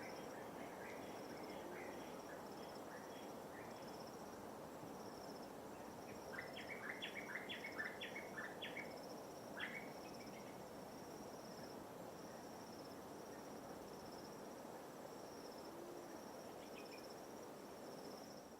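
Gentle wash of light waves, with an insect giving regular high chirps a little over once a second throughout. A bird calls in quick runs of short notes, busiest about six to ten seconds in.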